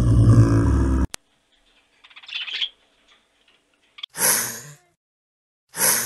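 Snow leopard growling, cut off about a second in, followed later by two short breathy hisses.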